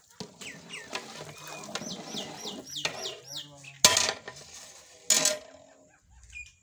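Long metal ladle stirring and knocking against a large metal deg (cooking cauldron), with two sharp clanks about four and five seconds in. A bird calls with a quick run of short falling chirps in the middle.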